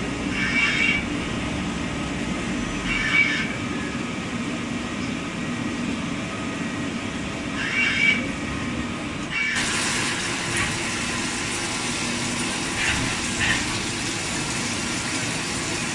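CNC automatic lathe running in a machine shop: a steady mechanical hum with short hissing bursts now and then. About nine and a half seconds in the sound changes abruptly to a brighter, hissier steady noise.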